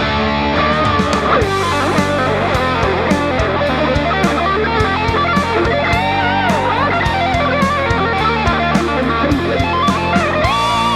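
Electric guitar playing a lead line with string bends over a backing track with a steady drum beat and bass.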